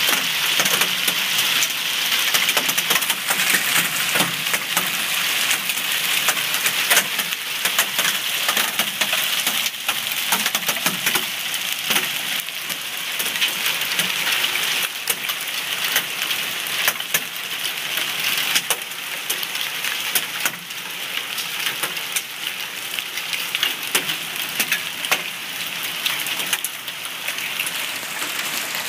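Hail and rain pelting a wet paved driveway: a dense steady hiss with many sharp ticks of hailstones striking, easing a little in the second half.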